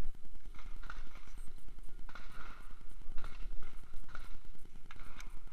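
Irregular soft knocks and rattles as a shooter moves with a carbine between positions: footsteps on dirt and the clatter of rifle and gear, with a magazine change near the start. No shots are fired.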